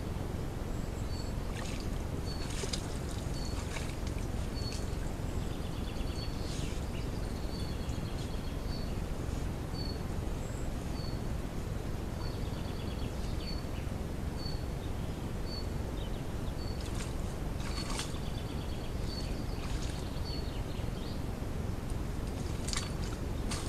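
Wild boar moving in a muddy wallow, the water sloshing and splashing now and then, over a steady low background rumble. A bird repeats a short high note about once a second.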